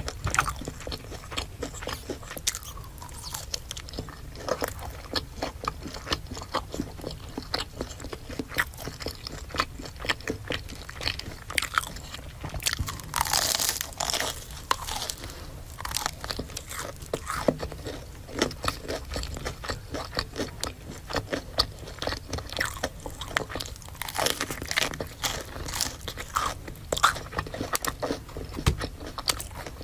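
Close-miked eating of crispy fried food: repeated crunchy bites and chewing, with moist mouth sounds in between.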